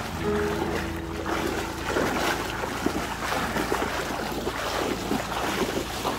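Legs wading fast through thigh-deep floodwater, sloshing and splashing with each stride, the splashing growing busier about two seconds in.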